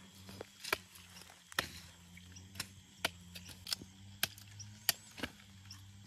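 Irregular sharp snaps and crackles of dry plant stems and leaves in a cassava plot, about ten in six seconds, over a steady low hum.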